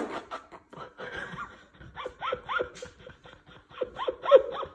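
A person laughing in quick, short bursts, each one dropping in pitch, starting about two seconds in and lasting to near the end. A few light clicks and knocks come before it.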